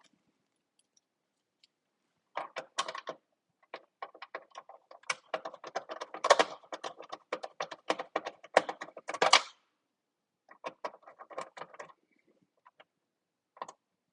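Screwdriver bit, extension and small screws clicking and rattling as screws are backed out and handled. The clicking starts about two seconds in and runs in a dense, uneven stream, then stops. A shorter burst follows, with one last click near the end.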